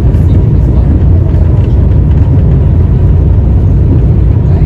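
Steady low rumble of an Italo high-speed train running, heard from inside the passenger cabin.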